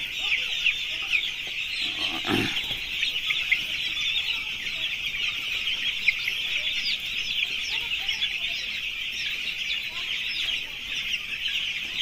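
Hundreds of eight-day-old broiler chicks crowded together in a brooder house, peeping all at once in a dense, continuous chorus of high cheeps.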